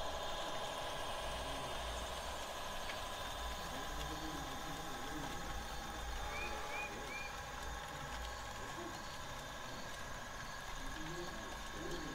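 HO-scale model freight train rolling past, with the steady hum and throb of the locomotive's sound-equipped diesel engine easing off slightly as the cars go by, and a light regular ticking. Twice a quick run of three rising chirps, about halfway through and again at the very end.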